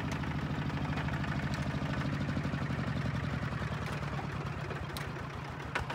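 Single-cylinder diesel engine of a two-wheel walking tractor idling with a steady, rapid chugging. Two sharp clicks near the end.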